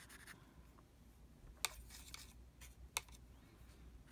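Very quiet room tone broken by two small sharp clicks, one about a second and a half in and one about three seconds in.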